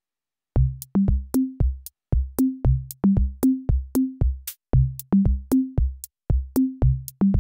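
Background music: a steady beat of sharp drum hits, each carrying a short, low pitched note that quickly dies away. It starts about half a second in.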